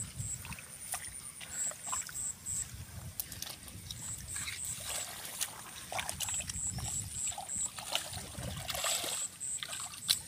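Hands groping through shallow muddy water and mud, making small irregular splashes, sloshes and drips while feeling for fish.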